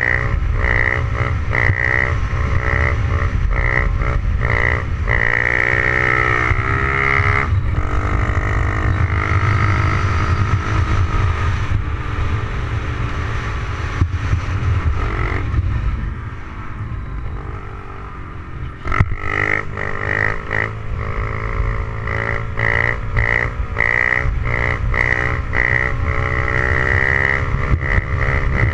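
Honda CRF70's small four-stroke single-cylinder engine revving hard while the bike is ridden on its back wheel in second gear, with heavy wind rumble on the microphone. The engine note rises and falls with the throttle, drops away for a couple of seconds past the middle, then picks back up after a sharp click.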